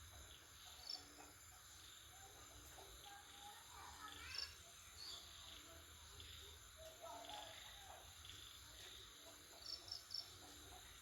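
Faint outdoor farm ambience: a steady high-pitched drone with scattered short, high chirps, three in quick succession near the end.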